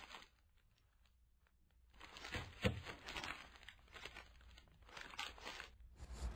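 Paper fast-food wrapper crinkling and rustling as hands unwrap it, starting about two seconds in, with a sharp crackle partway through.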